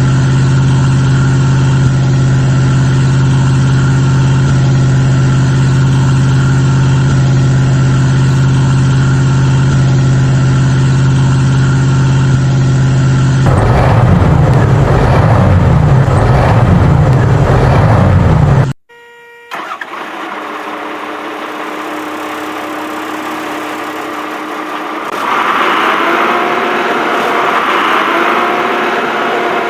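Heavy-vehicle engine sound, first running at one steady pitch, then wavering up and down. It cuts off abruptly, and a quieter engine sound follows; about 25 seconds in it grows louder, with a whine that rises over and over.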